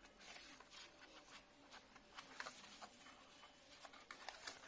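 Faint rustling of cardboard packaging and scattered light clicks and taps as hands pull packed earbuds and accessories out of a small box.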